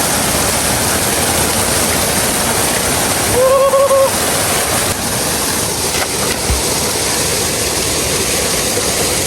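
Waterfall rushing steadily, a constant loud wash of falling water. A brief held tone cuts through about three and a half seconds in.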